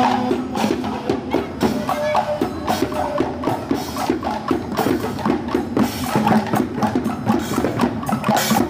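Rhythmic drumming and knocking on hand percussion, a steady fast beat of sharp strikes running on without a break.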